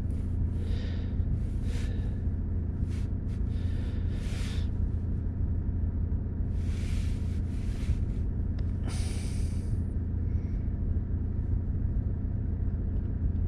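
Car engine idling steadily with a low, even hum. Several short hissing noises come over it during the first ten seconds.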